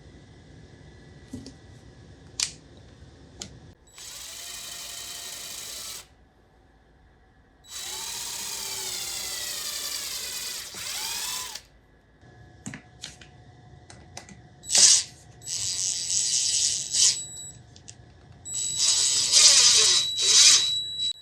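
Handheld power drill running in two spells of a few seconds each, its motor pitch rising and falling. Several short, louder bursts follow near the end.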